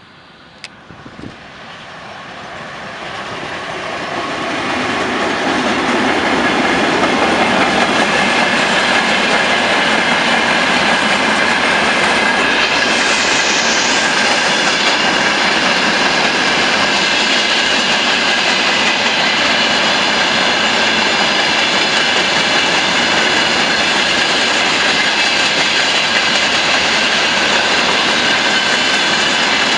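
A 2TE116 diesel locomotive hauling a freight train approaches, growing steadily louder over the first several seconds. The train then passes close by in a loud, steady rumble, with wheels clattering over the rail joints.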